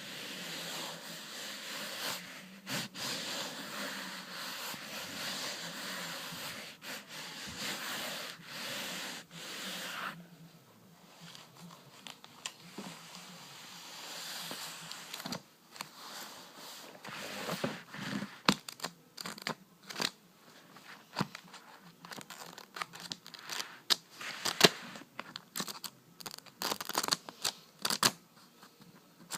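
Close-miked rubbing and crinkling for about ten seconds, then a run of irregular sharp taps and clicks.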